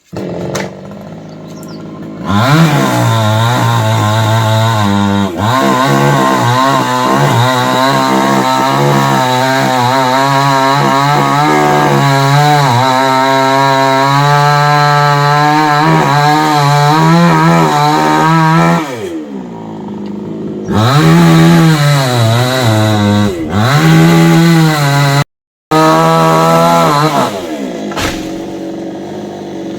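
Chainsaw running and cutting into a palm trunk, its engine revving up and down under load and easing off twice before picking up again.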